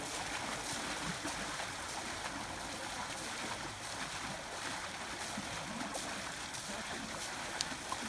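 Steady rush of river water with splashing as a man throws water over a bathing elephant.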